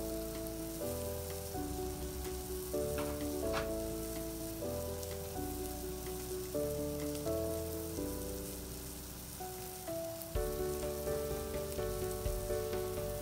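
Chuck eye roll steak sizzling as it sears in a frying pan. Background music with held chords that change every half second or so plays over it.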